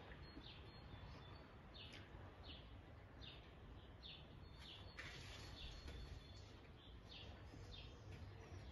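A small bird chirping, short downward chirps repeated a little more than once a second, faint over a low steady background rumble.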